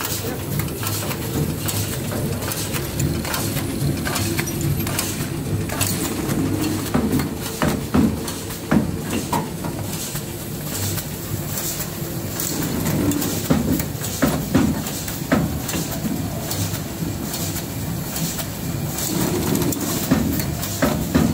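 PE separator enveloping machine for lead-acid battery plates running: a steady mechanical hum with frequent clicks and clacks from its moving parts, a few of them louder.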